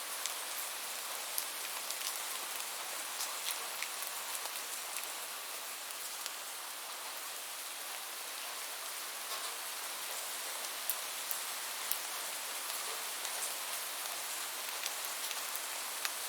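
Steady rain: a dense, even hiss with scattered individual drops tapping through it.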